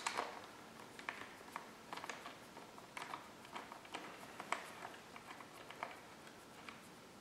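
Faint, irregular small clicks and ticks of a T-handle hex wrench turning a bolt on a dirt bike's handguard mount.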